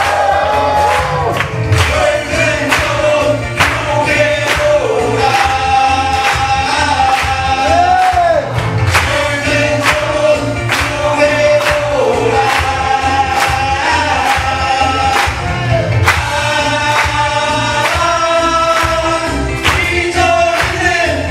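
Several voices singing an upbeat song together over musical accompaniment with a steady drum beat.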